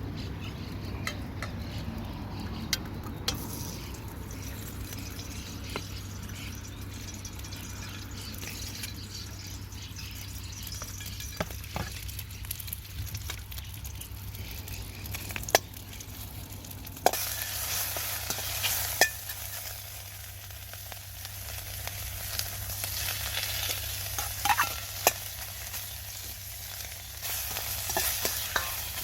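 Food stir-frying in a Chinese wok, with a steady sizzle and scattered sharp clinks of a utensil against the wok. The sizzle becomes brighter and louder a little over halfway through.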